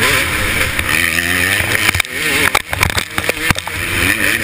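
KTM 250SX two-stroke motocross engine revving up and down as the rider races over the dirt track, with a constant rush of wind on the microphone and sharp knocks from the bike on the bumps.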